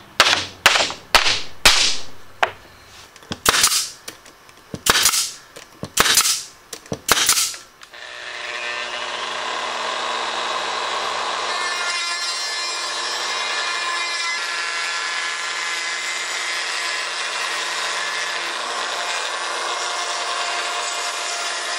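About a dozen sharp knocks in quick, irregular succession. About eight seconds in, a handheld plunge router starts and runs steadily at full speed, cutting a test slot in plywood along a temporary jig.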